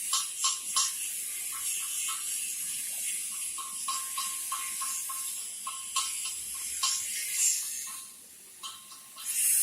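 Electric arc welding: crackling and sputtering over a steady high hiss. It drops off about eight seconds in, and a louder hiss starts again near the end.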